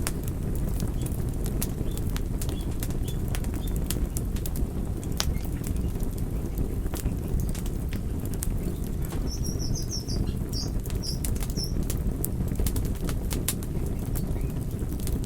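Wood fire burning in a fireplace: a steady low rumble of flames with frequent sharp crackles and pops. About ten seconds in, a short run of high chirps.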